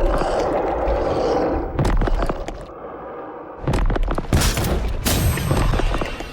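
Kaiju battle sound effects: a dense rasping noise for about the first second and a half, then scattered impacts, a short lull, and from about four seconds in a run of heavy booms and crashing impacts, the loudest part.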